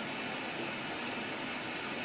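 Samsung Eco Bubble front-loading washing machine partway through a colour wash cycle, giving a steady hiss with a few faint light ticks.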